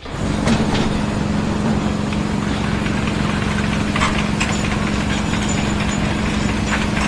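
An engine running steadily, with a constant hum.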